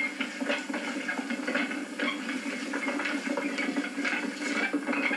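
Grape crusher running with bunches of grapes in its hopper: a steady low hum with irregular wet crunching and splashing as the berries are burst for their first juice.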